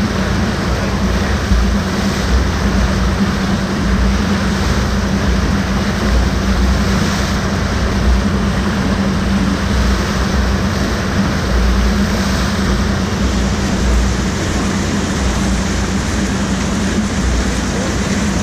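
Loud, steady rushing and churning of pumped water forming a standing wave in an artificial surf pool, with a steady low hum underneath.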